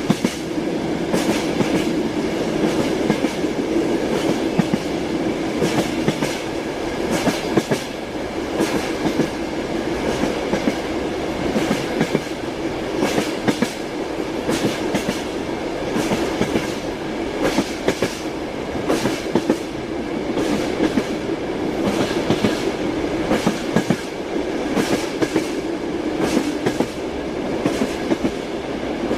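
Train wheels clattering over the rail joints as the train runs at a steady speed: a continuous rumble with frequent clicks and knocks throughout.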